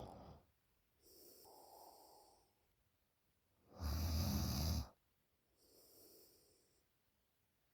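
A sleeping 20-year-old woman snoring. Softer breaths alternate with one loud, deep snore about four seconds in.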